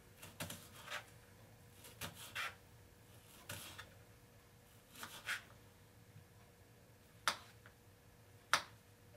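Thin stainless steel kitchen knife slicing on a cutting board: faint, irregular knocks as the blade meets the board, about ten of them, the two sharpest near the end.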